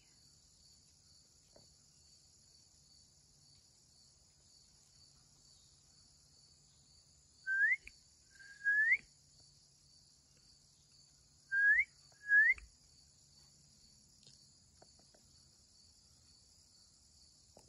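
Two pairs of short rising whistles, the two in each pair about a second apart, over a faint steady high drone of insects.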